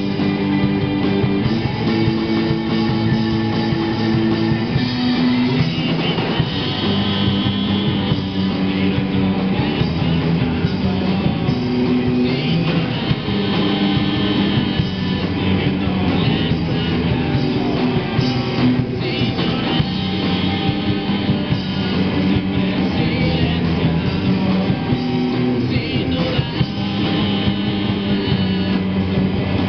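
Live rock band playing: electric guitars, electric bass and drum kit.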